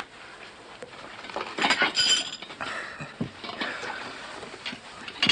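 China, glassware and silverware clinking at a laid table, with a brighter ringing clink about two seconds in.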